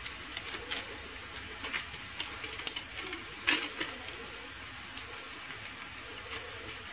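Light scrapes and taps of a metal fork spreading mashed potato over baking paper, a dozen or so faint clicks, the strongest about three and a half seconds in. Under them a faint steady sizzle of chopped onion softening in oil.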